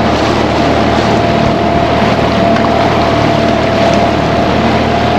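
Boat engine running steadily while under way, a constant low drone with a thin steady whine above it and the rush of the hull through water.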